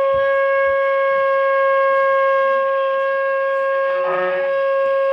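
Shofar sounding one long, steady held blast. About four seconds in, a second, lower tone joins it.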